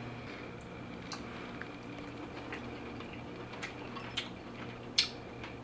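Scattered faint clicks and taps of eating a steamed lobster tail with butter at the table: shell, utensil and plate contact over a steady low room hum, the sharpest tap about five seconds in.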